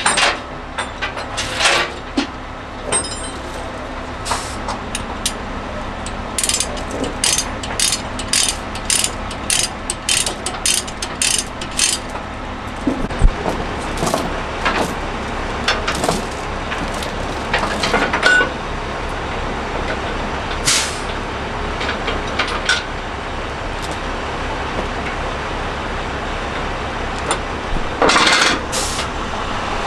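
Heavy steel tie-down chains clinking and rattling as they are pulled and wrapped to secure a load on a flatbed trailer: a busy run of clinks for the first dozen seconds and another short burst near the end. A vehicle engine idles steadily underneath.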